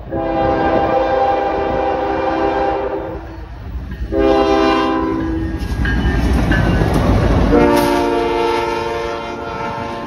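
Diesel freight locomotive's multi-chime air horn sounding a long blast, a short one, then another long one. Between the blasts the locomotives rumble past with the clatter of wheels on rail.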